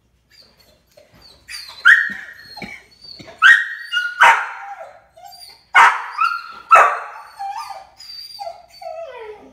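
A dog barking in about five loud, sharp, high barks, then giving quieter whines that fall in pitch near the end.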